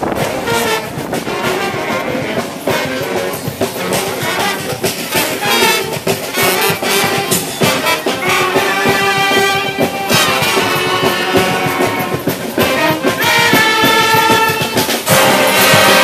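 Street brass band playing: horns blow held chords over steady drum beats, getting louder toward the end.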